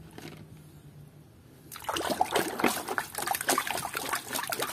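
Hands sloshing and swishing muddy plastic toys in a basin of water. It is quiet at first, then dense splashing and trickling starts about two seconds in.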